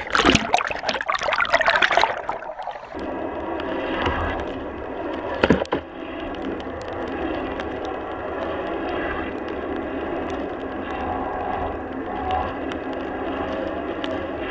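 Sea water splashing loudly around a board-mounted GoPro as the hydrofoil board comes up out of the swell, then a steady rush of water and wind past the board as it rides. A single sharp knock about five and a half seconds in.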